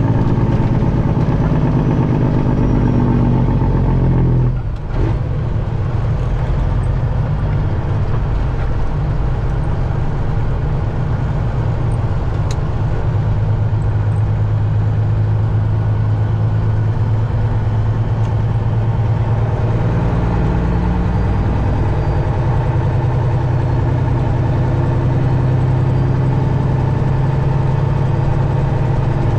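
Detroit diesel engine of a Peterbilt 379 big rig running steadily, with a brief dip in sound about five seconds in before it settles back to a steady drone.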